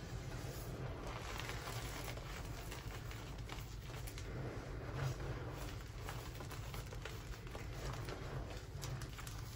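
Hands pressing and raking through a pile of crushed Grit Grip gym chalk: soft crunching with many small irregular crackles of chalk crumbs, over a faint low hum.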